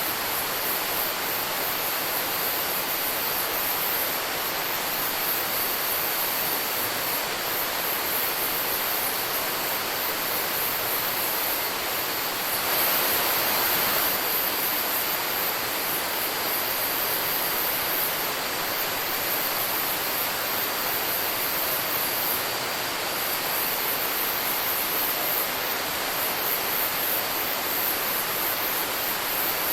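Rainforest ambience: a dense, very high-pitched insect chorus that pulses and swells, over a steady rushing hiss. The whole bed grows briefly louder about halfway through.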